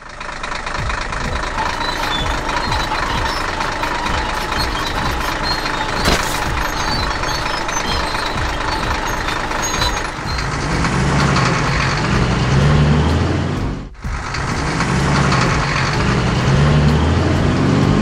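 Heavy construction-vehicle engines running as a cartoon sound effect: a steady machine din, joined about ten seconds in by a deep engine rumble that rises and falls, with a brief break near fourteen seconds.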